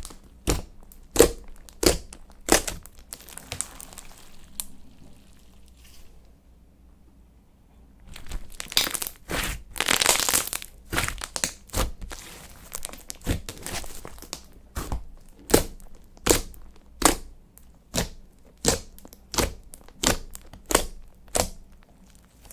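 Slime being kneaded and pressed by hand: a run of sticky pops and crackles, about one every half second or so, with a pause of about two seconds partway through.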